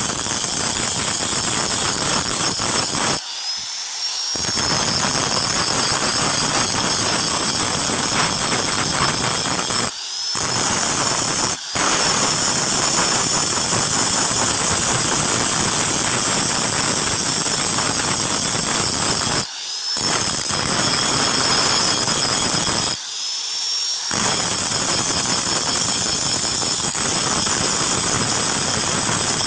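Electric angle grinder with an abrasive disc grinding the face of a steel cleaver blank: a steady high whine over a grinding hiss. About five times the disc lifts off the steel, the hiss drops out briefly, and the motor's whine rises in pitch as it spins up free.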